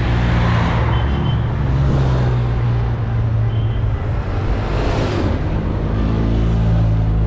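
Race convoy vehicles passing close at road level: a car goes by about half a second in and a motorcycle about five seconds in, each a swelling rush of engine and tyre noise. Under them runs a steady low engine drone.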